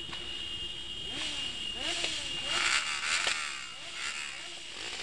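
Several motorcycle engines revving up and down in a slow-moving pack, their pitch rising and falling repeatedly, loudest in the middle.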